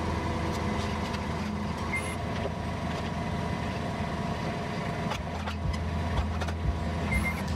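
Engine of a rough-terrain scissor lift running steadily while its platform is lowered, with a few light knocks near the end.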